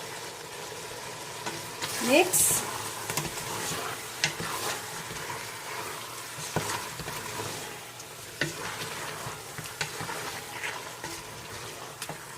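Chicken pieces sautéing and sizzling steadily in a pan while being stirred, with the spoon clicking and scraping against the pan now and then.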